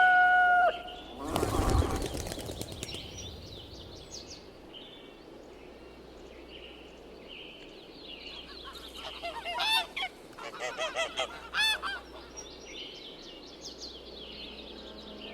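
Farmyard poultry: a rooster's crow tails off at the start, a short noisy rush follows about a second in, and a run of quick goose honks comes about nine to twelve seconds in, with small birds chirping faintly throughout.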